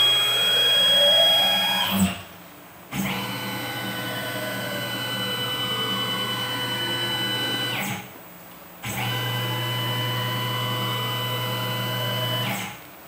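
Tormach PCNC 1100 Series 3 mill's axis stepper motors driving the table at rapid speed: a whine of several tones over a low hum, sweeping up as each move speeds up and down as it slows. One move ends about two seconds in, then two more follow, each after a pause of about a second.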